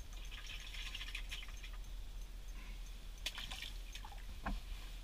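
Faint scattered clicks and small knocks of ice-fishing tackle being handled: reels, line and jigs worked by hand.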